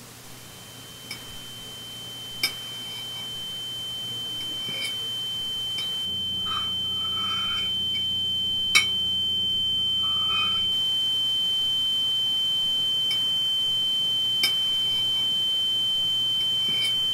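A single high-pitched ringing tone, held steady and growing gradually louder throughout. A few sharp clinks of a fork against a plate sound over it, the loudest near the middle.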